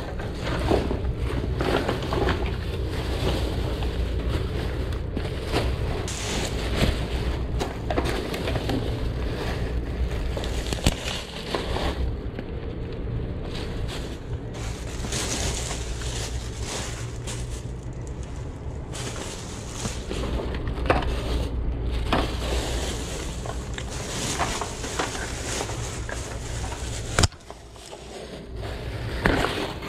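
Plastic bags and plastic-wrapped merchandise rustling and crinkling as they are rummaged through and packed by hand, with many small clicks of items knocking together over a steady low rumble. Near the end, a sharp knock, then a short quieter stretch.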